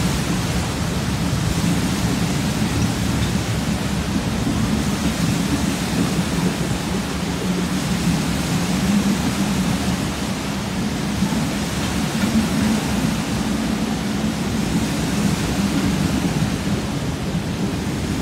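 Passenger train coaches rolling through floodwater over the rails, the wheels churning up a steady rushing splash of water over a low rumble.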